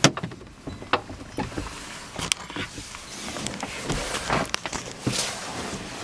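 Handling noise from a handheld camera being turned around inside a car: a string of irregular clicks and knocks with swells of rustling.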